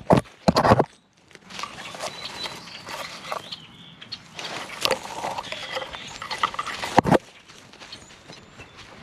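Dry grass, dead leaves and brush rustling and scraping against a camera carried by an animal pushing through undergrowth. There are two loud scrapes in the first second, then steady rustling with sharp knocks about five and seven seconds in.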